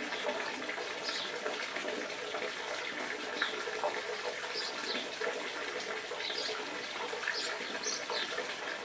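Steady hissing background noise, with faint rustling and scraping as hands press the ficus's roots against a rock.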